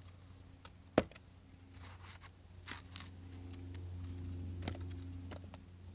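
Half Face Blades chef's knife slicing through a hand-held watermelon wedge: a few short crisp cracks as the blade breaks through the flesh, the sharpest about a second in. A steady low hum and a faint steady high tone lie underneath.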